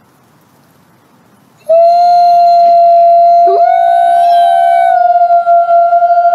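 Wolf howling: a long, steady, held note starts suddenly about a second and a half in. About two seconds later a second howl glides up in pitch to join it.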